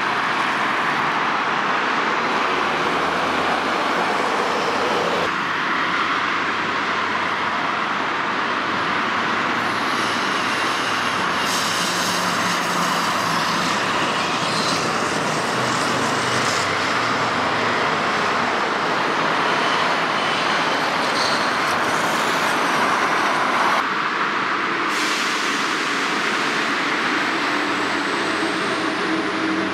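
Steady road traffic noise from a busy multi-lane avenue, with cars and buses passing. The character of the noise shifts abruptly several times.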